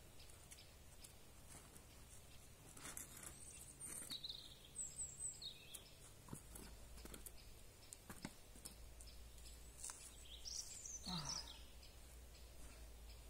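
Quiet forest ambience: small birds chirping now and then, with scattered faint taps and scrapes of hands and climbing shoes on the sandstone. Near the end there is a brief falling sound.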